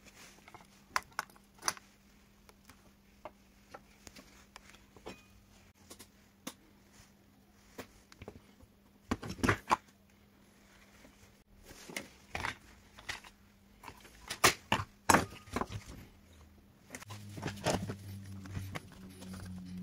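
Irregular clicks and knocks of the corroded washing machine control board and its plastic housing being handled, with a few louder knocks in quick clusters. A faint steady hum runs underneath, and a lower hum comes in near the end.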